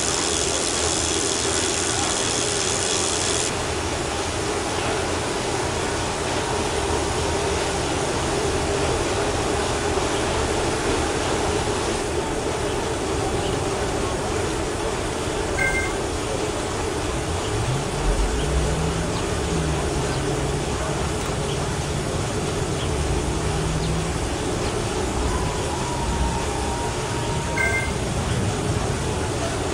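Wahoo direct-drive smart trainer and bike drivetrain whirring steadily as the rider pedals hard against about 320 W of resistance in a ramp test.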